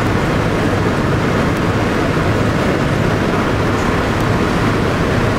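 Steady drone of a B-17 bomber's four Wright R-1820 Cyclone radial engines in level flight, heard from inside the fuselage.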